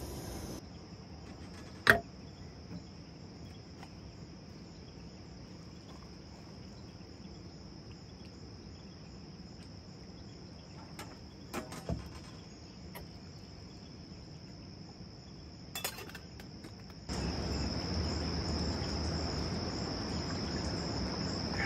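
Insects chirring in a steady high-pitched drone, louder for the last few seconds. A few light clicks and clinks break in now and then.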